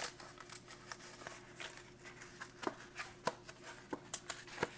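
Stiff paperboard of an MRE entree carton rustling and scraping as it is handled: a string of light scratchy ticks, with a sharper one near the end.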